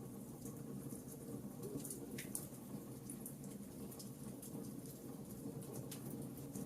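Wood fire burning in a fireplace: frequent small, irregular crackles and pops over a low, steady flame noise, with one sharper snap about two seconds in.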